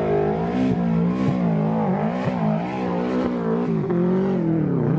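Off-road tube-frame buggy's engine revving hard under load as it claws up a rutted mud bank. The revs rise and fall every second or so, with brief sharp dips where the throttle comes off.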